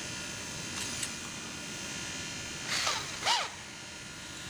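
Cordless drill run in two short bursts, each a quick whir that rises and falls, while the keyless chuck is held and spun tight on a drill bit.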